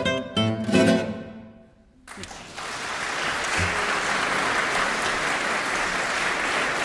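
Two acoustic guitars strike the closing chords of a piece, which ring out and fade away; after a short pause an audience applauds steadily.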